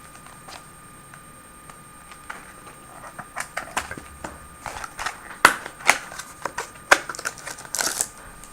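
Trading-card pack packaging being handled and opened: scattered clicks and crinkles that grow busier from about three seconds in, with several sharp snaps and a short rustle near the end.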